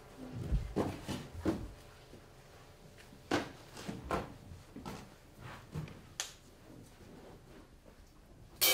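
Knocks, clatters and scrapes as flat painted flame props are set down on a dirt floor. Near the end a struck metal percussion instrument rings out once with several clear tones that die away slowly.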